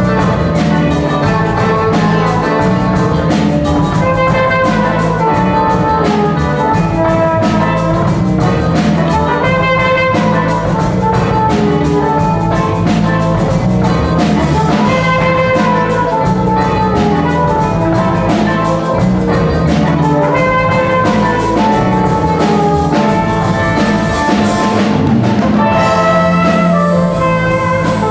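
Seven-piece jazz band playing live: horns carry the melody over guitar, keyboard, bass and drum kit.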